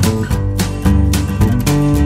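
Upbeat acoustic guitar background music, the guitar strumming chords in a steady rhythm over a bass line.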